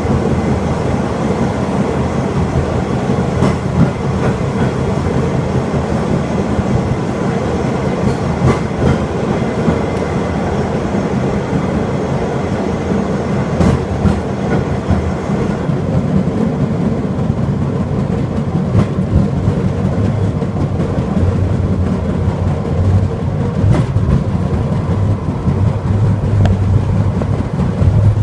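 Takachiho Amaterasu Railway's sightseeing rail cart running along the track. Its engine and wheels make a steady rumble, with a few light clacks over rail joints.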